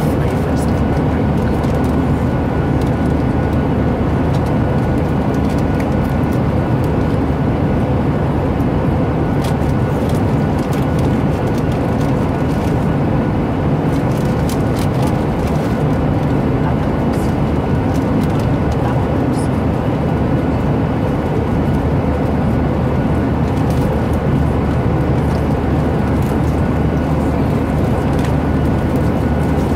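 Steady drone of a jet airliner cabin in flight, engine and airflow noise running evenly, with a few faint scattered clicks and crunches from crisps being eaten close by.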